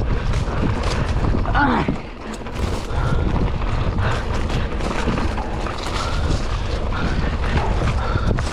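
Wind rushing over an action camera's microphone with bumps and rattles from riding a rough trail, and a short shout about two seconds in.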